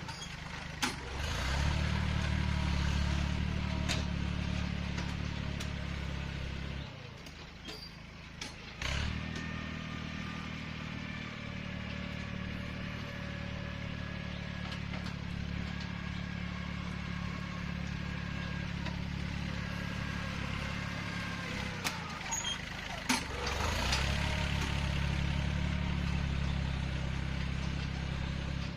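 Yanmar 1145 tractor's diesel engine running steadily under load while pushing dirt with a rear blade. It eases off for about two seconds around seven seconds in, then picks up again, with a few sharp knocks along the way.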